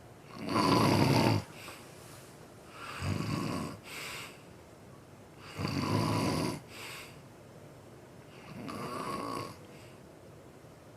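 A sleeping person snoring heavily: four long snores, each about a second, coming every two and a half to three seconds, with quieter breathing between them.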